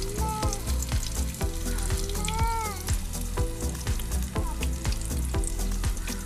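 Crushed shallots, dried red chillies and garlic sizzling in hot oil with mustard seeds in a metal pan, with frequent irregular crackles, as the tempering for a thoran fries.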